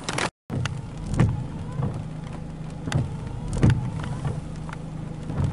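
Steady low hum of a car, heard from inside the cabin, with scattered sharp taps and knocks at irregular intervals. The sound cuts out for an instant near the start.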